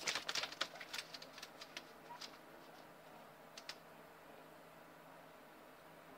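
A guinea pig nosing and scratching at the camera right by its microphone: a quick run of small clicks and scrapes over the first couple of seconds, then a last pair of clicks near four seconds in.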